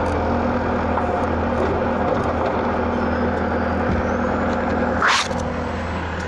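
Heavy diesel equipment engine running steadily. About five seconds in there is one short, sharp hiss of air, like an air brake being released, which is the loudest sound here.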